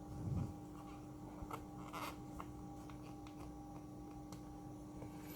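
Faint small clicks and scrapes of a small screwdriver and parts being handled inside an open MacBook Pro during a battery swap, with a soft low bump near the start.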